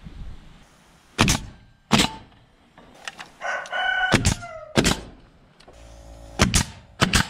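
DeWalt pneumatic coil nailer firing six nails into a wooden trim board, each shot a sharp bang, roughly in pairs. A rooster crows briefly in the background about three and a half seconds in.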